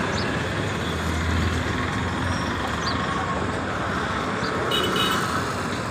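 Road traffic at a busy junction: a steady rumble of passing vehicles, with a deeper engine drone about a second in.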